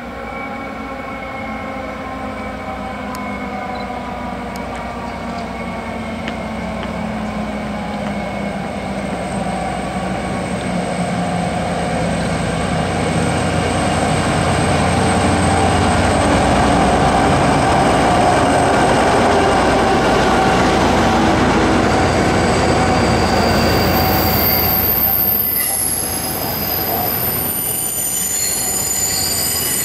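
V/Line N class diesel-electric locomotive hauling a passenger train into the platform: its diesel engine hum grows louder as it approaches and passes, then the carriages roll by with high-pitched wheel squeal over the last several seconds as the train slows at the station.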